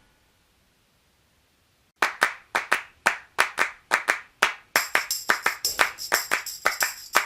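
Background music starting after about two seconds of silence: a steady rhythm of sharp handclaps, joined about halfway through by a jingling tambourine.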